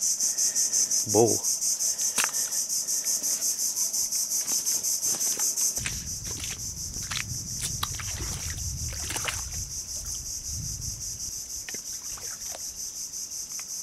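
Loud insect chorus: a high, rapidly pulsing buzz that runs steadily. From about six seconds in, a low rumble and scattered knocks come in as someone moves through mud and shallow water in rubber boots.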